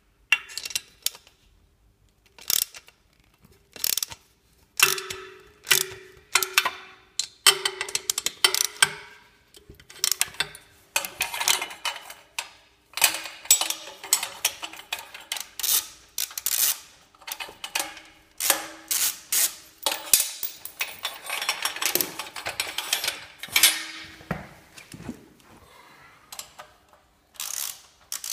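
Repeated metallic clanks, clicks and knocks of hand tools and exhaust parts being worked on a motorcycle, some knocks leaving a short ringing tone.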